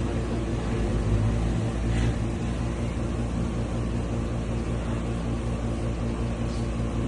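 A steady low machine hum at an even pitch, with no change in level.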